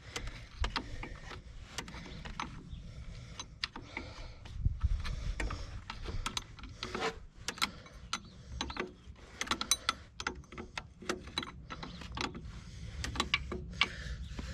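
Hand tools working metal fittings on an excavator engine: irregular sharp metallic clicks and clinks of a wrench and loose parts, with no steady rhythm.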